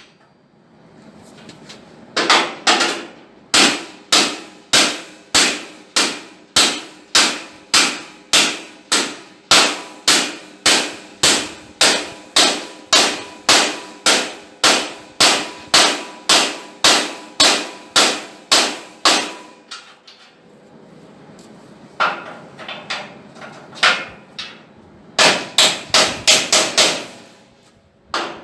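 Steel hammer blows on steel angle, about two a second, each ringing metallically, bending the angle in to meet the body over a steel dolly. The blows stop about 20 s in, then come back lighter and then in a quicker run near the end.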